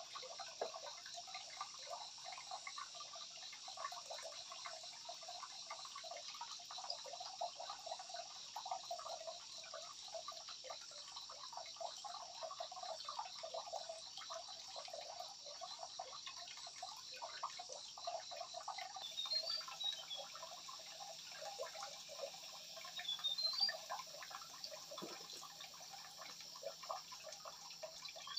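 Water trickling and splashing lightly, with a few short high chirps about two-thirds of the way through.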